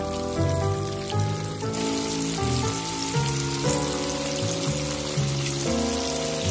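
Tofu cubes deep-frying in hot oil: a steady sizzle that sets in about two seconds in. Background music with a melody plays throughout.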